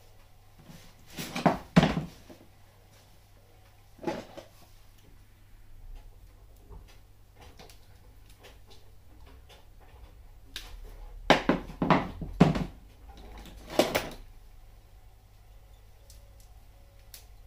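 Sharp knocks and clatters of hard objects being handled and set down, coming in groups: a pair about a second and a half in, one near four seconds, and a cluster of several between about eleven and fourteen seconds, over a low steady hum.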